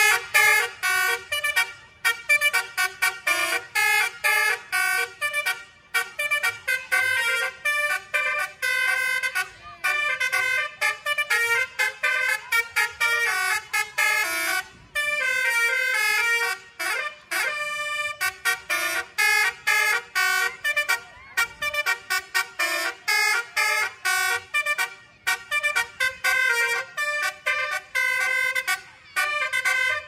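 Multi-tone musical air horn of the telolet "basuri" kind playing a fast tune of short, stepped notes, in quick runs with brief pauses.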